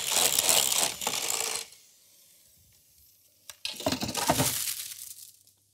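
Electric hand mixer running, its beaters stirring quark into a glass bowl of whipped egg yolk and sugar, stopping about a second and a half in. After a pause, a sharp click and about two seconds of metallic clattering.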